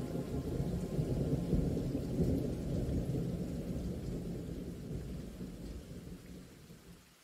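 A low rumbling noise, like thunder with rain, that swells in the first half, fades steadily and then cuts off suddenly just before the end.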